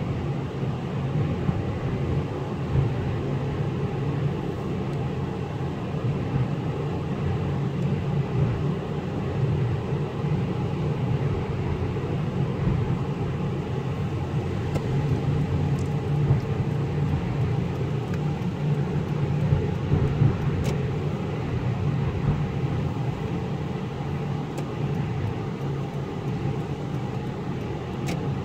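Steady road noise heard inside a moving car on a wet highway: engine and tyres running at cruising speed, with a few faint ticks in the second half.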